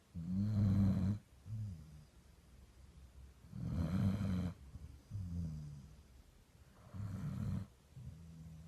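A small dog snoring in its sleep: three loud rasping snores about three seconds apart, each followed by a softer breath.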